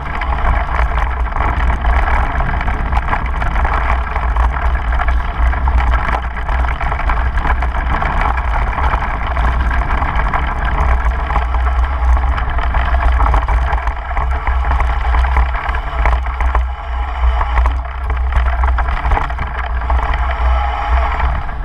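Wind rushing over the microphone of a camera carried on a mountain bike riding down a grassy slope, mixed with the bike's rolling noise on the grass: a steady, loud rush with a heavy low rumble and no breaks.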